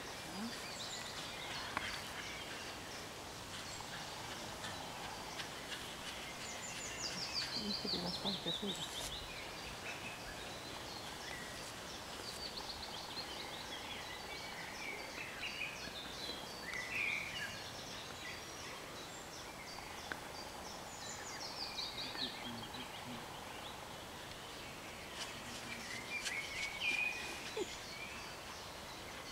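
Outdoor ambience with small songbirds singing: high, fast trills that fall in pitch twice, and scattered short chirps, over a faint steady background hum.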